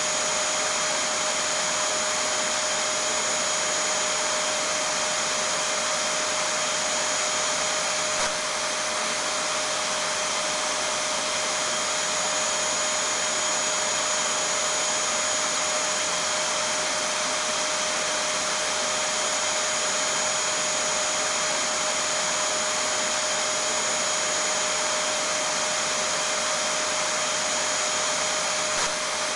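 Vacuum cleaner running steadily: an even rushing noise with a steady hum and a high whine over it.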